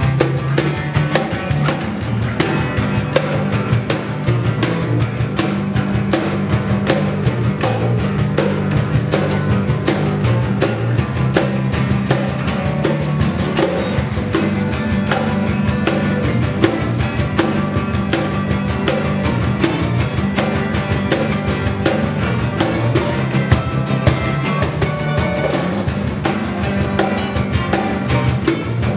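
Acoustic guitars strummed and picked over a hand-played cajon beat, a steady full-band acoustic groove.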